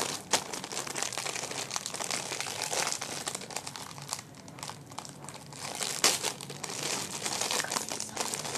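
Foil blind-bag packet being crinkled and torn open by hand: a continuous rustling crackle with frequent sharper crinkles.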